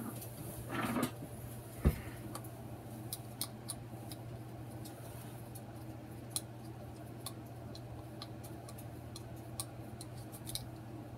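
Small hand screwdriver driving a screw, with faint irregular clicks and ticks as the tip turns in the screw head. A brief rustle and a single knock come about a second and two seconds in.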